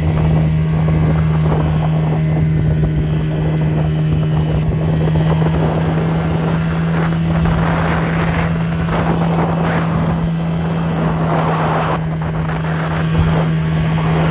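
Small speedboat's engine running steadily at speed, with water rushing past the hull and wind buffeting the microphone. The rush of water and wind swells louder for a few seconds in the middle.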